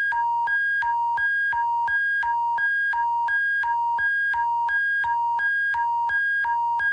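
Emergency alert attention signal: two synthesized tones alternating high and low, about three tones a second, over a faint steady low hum. It marks the break between the alert's English message and its French repeat.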